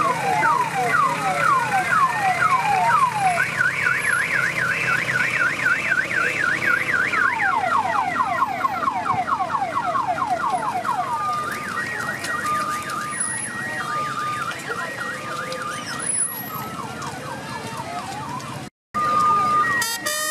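Electronic siren cycling through its patterns. It starts with repeated falling sweeps, then a fast up-and-down warble, then more sweeps, then a two-tone high-low alternation, and cuts out briefly near the end.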